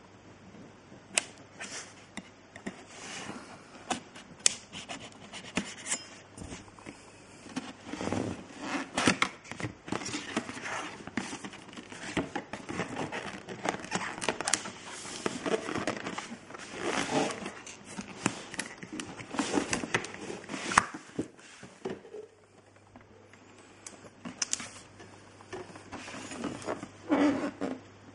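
Cardboard packaging being opened: a knife cutting the box's seal, then the outer box's flaps opened and the inner box slid out, in a run of scrapes, rustles and clicks.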